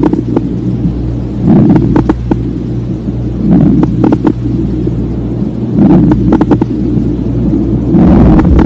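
Lung sounds heard through a stethoscope: a breath swells and fades about every two seconds, each with a cluster of short clicks, over a steady low hum.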